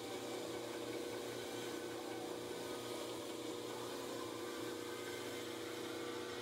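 KMG-style belt grinder running steadily on its Leeson electric motor, with a steady hum and a hiss as the CPM 3V steel cleaver blade is ground against the belt.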